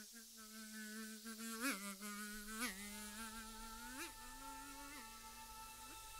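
A fly buzzing in a steady drone that swoops up in pitch four brief times, then stops near the end. A faint steady high tone comes in about three seconds in.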